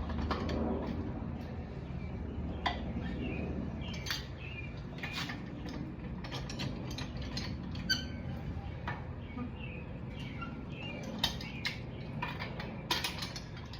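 Scattered metal clicks and clanks of a ratchet wrench and socket being worked on the truck's wheel lug nuts, breaking them loose, over a low steady hum.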